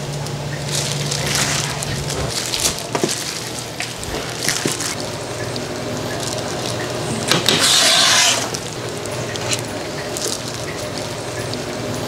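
Restaurant kitchen background noise, with scattered light clicks and clinks from dishes and utensils and a louder hissing rush for about a second near the middle.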